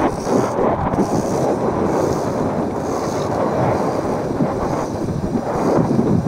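Wind buffeting the microphone of a camera riding along on a moving mountain bike, a loud, steady, rough rush of noise.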